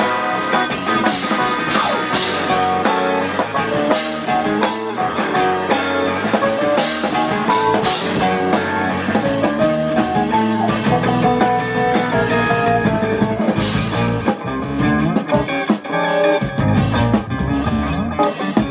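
Live rock band playing electric guitar, bass guitar, keyboard and drum kit together.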